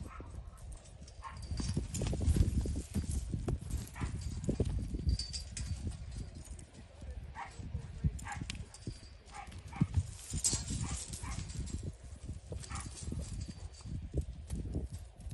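Hooves of a young horse thudding on soft dirt in an irregular rhythm as it gallops loose around a pen.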